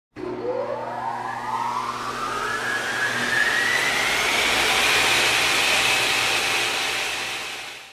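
Synthesized rising whoosh sound effect for an animated logo intro: a noisy swell with several tones gliding steadily upward in pitch, growing louder, then fading out sharply near the end.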